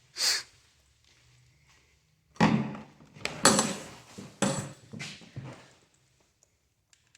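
A brief hiss, then a run of five or six hard knocks and clatters over about three seconds, as of hard objects being handled or banged about.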